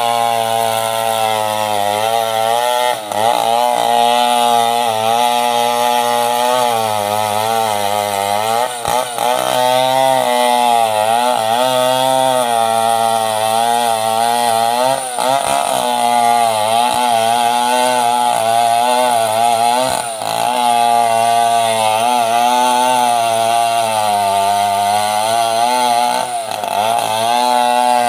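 A 070 two-stroke chainsaw running under load, cutting through a coconut palm trunk. Its engine pitch wavers up and down as the chain bites into the soft wood, with a few brief dips in speed.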